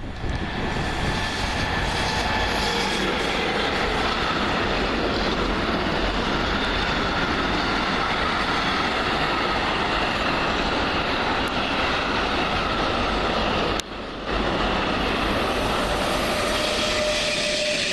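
A train running through a railway station: a loud, steady rolling noise with faint whining tones over it, which drops out briefly about fourteen seconds in.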